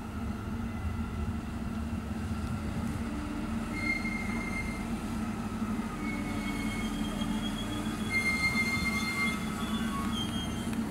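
Red diesel multiple unit running in slowly, its diesel engine humming steadily. High-pitched squeals from the wheels and running gear set in about four seconds in and again, stronger, near eight seconds.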